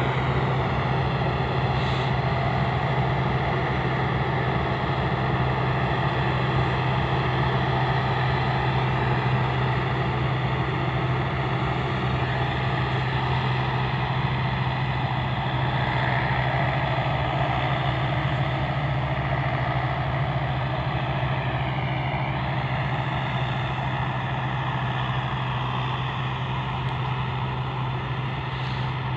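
Combine harvester running steadily while cutting and threshing rice: a continuous engine drone with a strong low hum, growing slightly fainter toward the end as the machine moves away.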